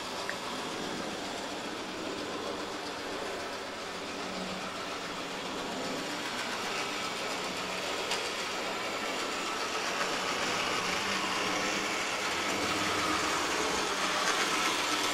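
AHM C-Liner HO-scale model diesel locomotive running on the track at 40% throttle, its motor and gears giving a steady growl. It grows gradually louder as the locomotive comes around toward the listener.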